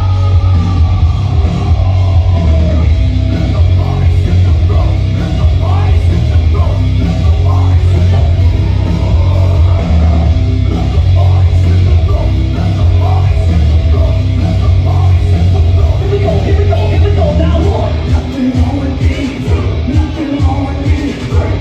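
Loud dubstep played in a DJ set: heavy, sustained sub-bass under distorted synth and guitar-like layers with shouted vocal fragments, the bass turning choppy and rhythmic near the end.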